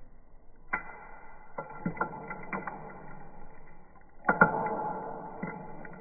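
Vacuum cleaner running and sucking dust, lint and grit through its crevice tool, with small crackling clicks of debris going up the wand. The suction sound comes in sharply just under a second in and jumps louder again a little past four seconds as more debris is fed in.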